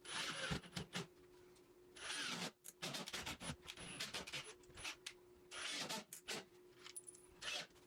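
Quiet drywall work: short, irregular scraping and rubbing bursts with scattered clicks and knocks as a drywall backing piece is handled and fitted, over a faint steady hum.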